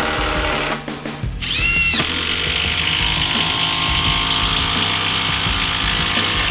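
Cordless impact drivers driving long batten screws into laminated veneer lumber, with background music over them. The sound drops briefly about a second in, then runs steadily.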